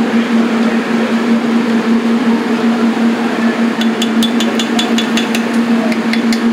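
Steady loud kitchen machine hum over a rushing noise. About four seconds in comes a quick run of sharp clicks, about six a second, which thins out near the end.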